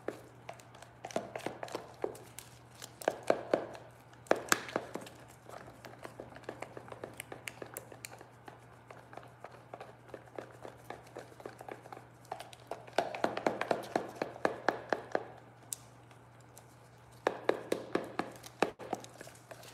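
Epoxy resin being stirred by hand in a plastic mixing container during its three-minute mix, the stirrer scraping and clicking against the sides in quick runs of taps that come and go. A steady low hum runs underneath.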